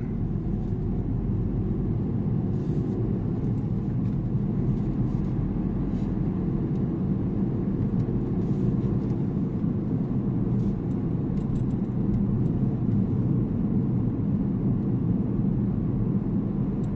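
Steady low rumble of a car's tyres and engine heard from inside the cabin while driving along a narrow, rough-surfaced road, with a few faint ticks scattered through it.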